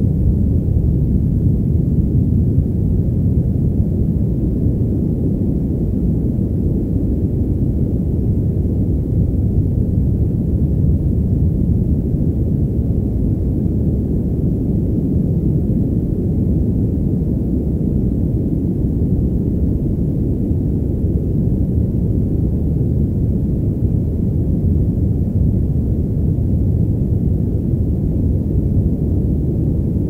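Steady, muffled white noise with its high end filtered away, leaving a deep, even rush that does not change.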